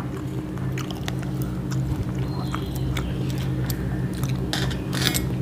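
People eating rice with their hands from steel plates: chewing, with scattered small clicks of fingers and food against the plates, over a steady low hum.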